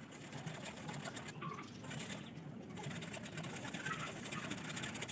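Rustling and light crackling of bamboo stems and dry leaf sheaths as a hand grips and works a green bamboo culm, with many small clicks.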